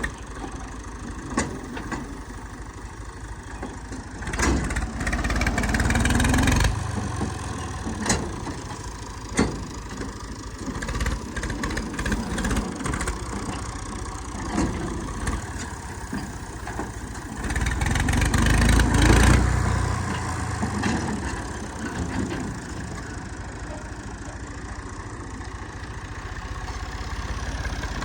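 Tractor engine running at idle, with two louder stretches, about four seconds in and again about seventeen seconds in, and a few sharp knocks.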